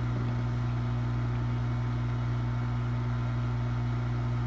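Hot-air rework tool blowing steadily, a constant hum over an even rush of air, as it warms glued parts at a low temperature setting.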